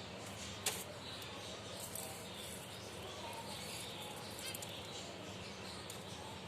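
Finches chirping with short, high chirps over a steady background hiss, and a single sharp click about a second in.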